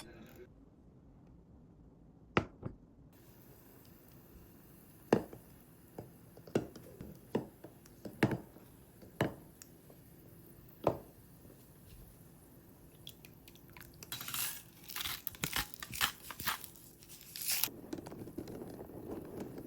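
Kitchen handling sounds: a dozen or so sharp, separate taps and clicks, then a few seconds of crinkling and tearing. A steady low rushing sound starts near the end.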